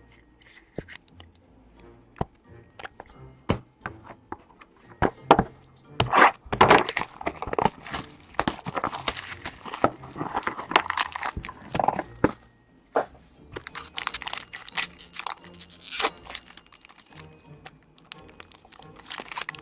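Background music under crinkling, tearing and sharp clicking: trading-card packaging being torn open and cards handled. The crackling comes in dense bursts about six seconds in and again near the middle of the second half.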